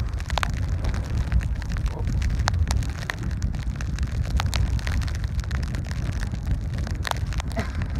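Wind buffeting the microphone as a steady low rumble, with scattered light ticks and taps at irregular moments.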